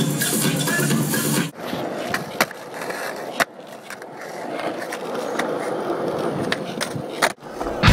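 Skateboard wheels rolling over rough asphalt, with two sharp clacks of the board about two and a half and three and a half seconds in. For the first second and a half a different, louder sound plays, and the rolling stops just before the end.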